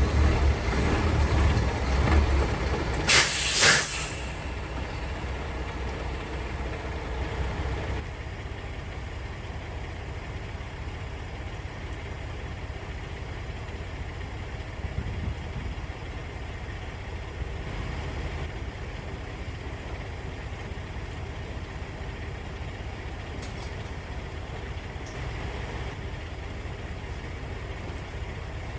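Semi-truck diesel engine running, with a short loud burst of compressed-air hiss about three seconds in, like an air-brake release; after that the engine settles to a steady, quieter drone.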